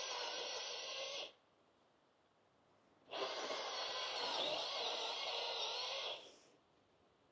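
Chainsaw running under load as it cuts a tree, its pitch wavering, in two bursts: one stopping about a second in, a second from about three seconds in to about six.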